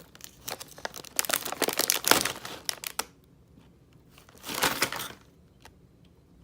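Plastic wrapper of a Calbee baseball card pack crinkling and rustling as a card is pulled out, for about two and a half seconds, then one more short rustle about two-thirds of the way in.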